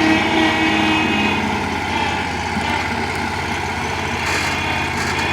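Backhoe engine running at a steady idle.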